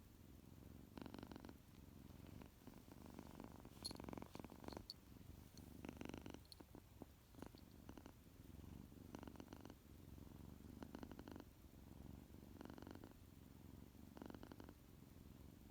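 Tuxedo kitten purring quietly and steadily, the purr swelling in regular pulses about every one and a half to two seconds. A few faint clicks come around four to six seconds in.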